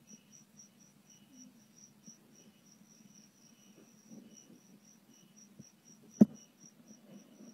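Crickets chirping steadily in an even, high-pitched pulse, about four to five chirps a second. A single sharp click cuts through about six seconds in.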